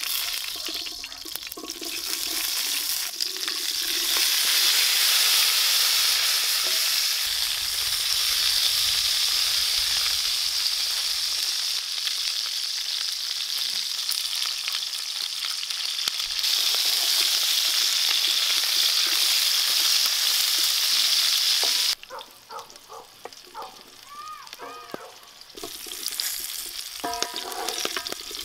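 Small whole potatoes tipped into hot fat in a large black pan over a wood fire, sizzling loudly. About 22 seconds in, the sizzle drops suddenly to a quieter frying, and near the end a wooden spatula stirs the potatoes in the pan.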